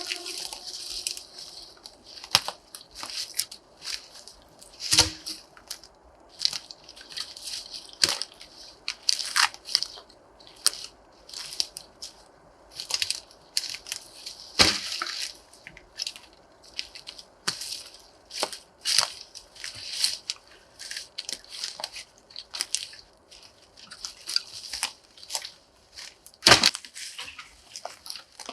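Dog drinking water from a plastic bag set in a hole in the ground: irregular wet lapping with crinkling of the plastic, in short bursts, with a few louder splashes or crackles.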